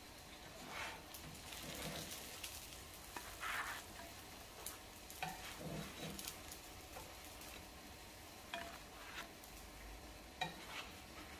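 Faint sizzle of oil in a frying pan with a few short scrapes and light knocks as the fried mince rolls are lifted out and laid on a tray.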